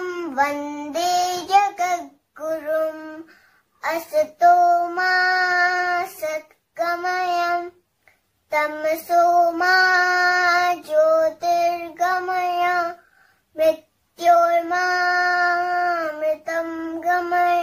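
A young girl chanting a Sanskrit shloka solo. She holds each phrase on a steady pitch, with short pauses between phrases.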